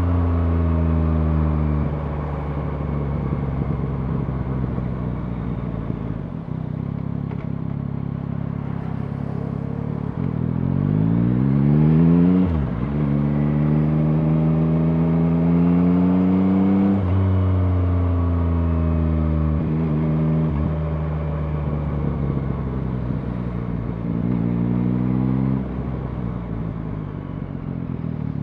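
Yamaha MT-09's 890 cc three-cylinder engine under way. The revs fall off at first, then settle. About ten seconds in they climb steeply and drop sharply at an upshift, then climb again in a long pull. They fall back and hold steady, with a short blip of throttle near the end.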